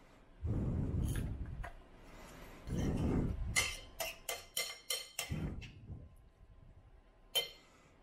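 A metal spoon clinks against a ceramic bowl as food is stirred: a quick run of about half a dozen ringing clinks past the middle, and one more near the end. Duller knocks and rumbles come from handling the bowl and grinder.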